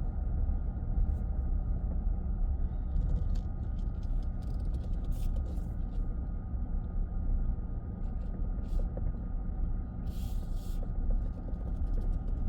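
Minivan driving at road speed: a steady low rumble of tyres and engine.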